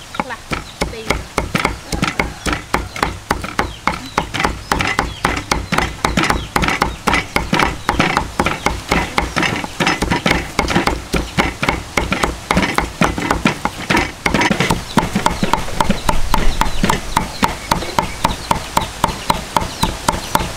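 Cleaver chopping dried red chilies on a thick wooden chopping block: a fast, even rhythm of knocks that keeps on throughout.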